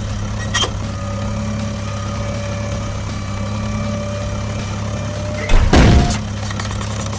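Vehicle engine running steadily with a low, even hum. About five and a half seconds in there is one loud thud lasting about half a second.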